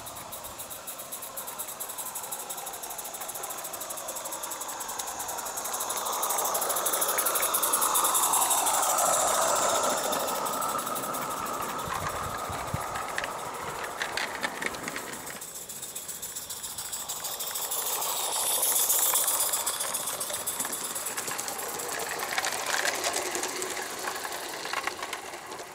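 A 16mm-scale live-steam model of the Hunslet 2-6-2T locomotive Russell, running past with a train of carriages: a fast, even patter of exhaust beats over the noise of small wheels on the track, with clicks as the wheels cross the rail joints. It swells twice as the locomotive and then the carriages pass close.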